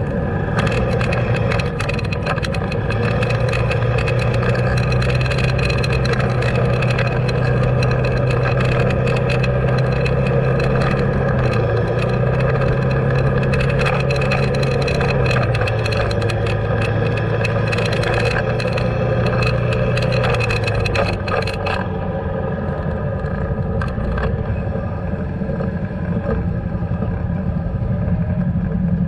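A road vehicle's engine running while it drives, with road noise and frequent short rattling clicks. The engine hum holds steady, stepping down in pitch a few times. About 21 seconds in it falls away and the rattling stops, leaving a lower rumble.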